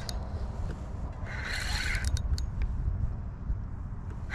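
A spinning fishing reel buzzing in short bursts, once about a second and a half in and again at the very end, with a few light clicks after the first. Under it runs a steady low rumble.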